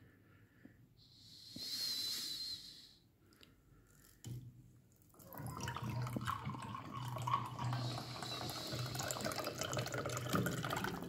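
Drink pouring in a steady, splashing stream from a brass pipe dispenser's tap into a glass tumbler, starting about halfway through. A high, wavering squeak sounds briefly about two seconds in.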